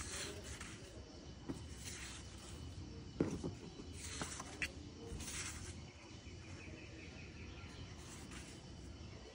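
Sheets of painting paper rustling as a stack of paintings is leafed through page by page, in several short swells, with one sharper knock about three seconds in.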